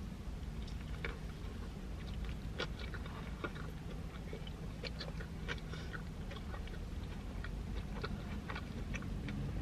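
A person chewing a mouthful of burger with the mouth closed: quiet, irregular small chewing clicks and smacks.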